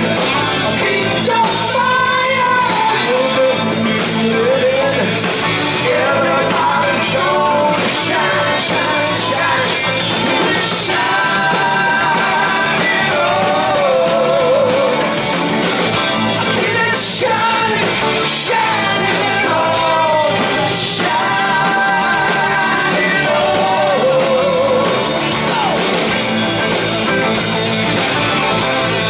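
Rock band playing live: a male lead vocal sung over electric guitars, bass guitar, drums and keyboards.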